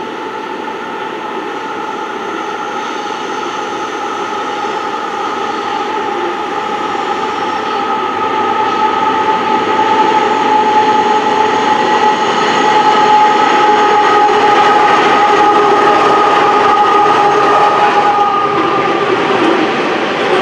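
An 81 class diesel-electric locomotive and three more diesels hauling a container freight train, growing louder as they approach, with a steady high whine over the engines' rumble. The container wagons roll past near the end.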